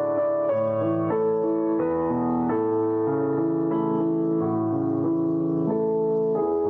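Background piano music: slow sustained notes and chords.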